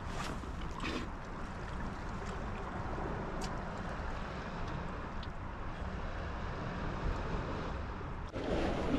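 Steady wind on the microphone with the wash of the sea, broken by a few faint clicks; the noise grows louder near the end.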